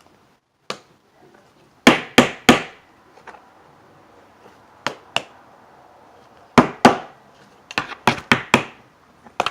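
Sharp knocks in quick groups of two to four: a glitter glue bottle being banged on a hard surface to force out glue that will not come out.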